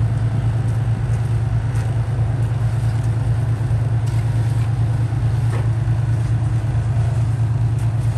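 Truck engine idling with a steady low hum, and a few faint knocks over it.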